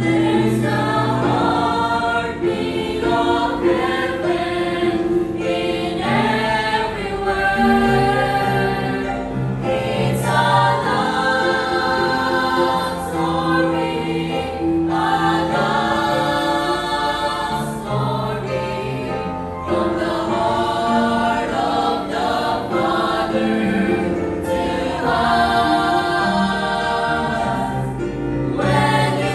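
Music: a choir singing held chords, changing every second or two, over a low bass line.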